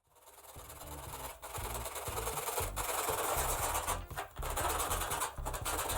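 A piece of hacksaw blade sawing through a plastic syringe barrel: a steady rasping of repeated strokes that swells up over the first second, with short breaks between bouts of sawing.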